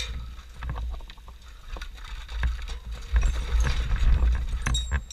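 Low rumble of wind on the microphone, with scattered irregular clicks and knocks of handled gear or footsteps.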